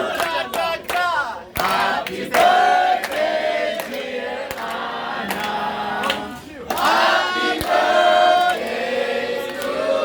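A group of voices singing a birthday song together in chorus, with long held notes, punctuated by sharp percussive hits.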